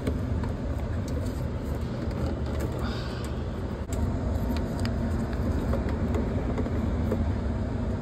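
Steady low running hum of the air-conditioning equipment, with a few light clicks as the plastic caps on a PVC condensate drain tee are handled.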